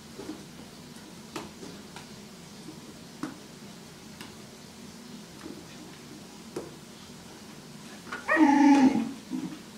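Belgian Tervuren puppy playing with a rubber TireBiter tire toy: scattered light knocks and clicks from the toy, then, about eight seconds in, one loud, drawn-out bark-like cry and a short second one.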